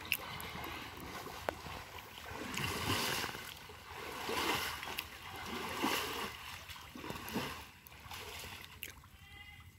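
Pond water swishing and splashing in repeated surges about every one and a half seconds as a bamboo-framed four-corner net is pushed and swept through it.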